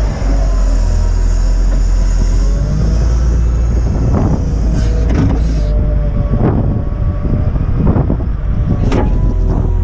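Volvo L60E wheel loader's diesel engine running under load while it works snow, with a whine that shifts in pitch and several short knocks in the second half.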